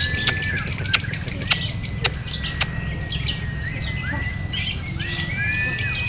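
Lovebirds chirping in a rapid, continuous chatter, with several long, steady whistle-like notes and a few sharp clicks, over a low background rumble.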